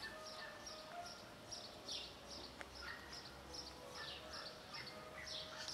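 Small birds chirping over and over: short, high chirps falling in pitch, several a second.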